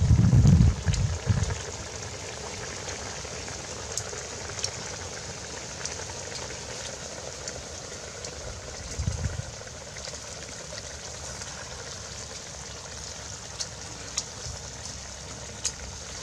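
Wood fire crackling under a pot of boiling soup: a steady hiss with scattered small crackles. A loud low rumble fills the first second or so, and a shorter one comes about nine seconds in.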